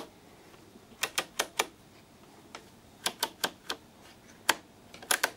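Large multi-wafer rotary switch in a 1976 Furuno radar display unit being turned through its detents, giving sharp clicks in quick runs of three or four.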